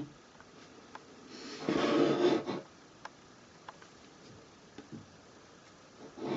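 Wooden combination lock being unlocked: a scrape of wood on wood lasting about a second as the shackle slides open, then a few light wooden clicks.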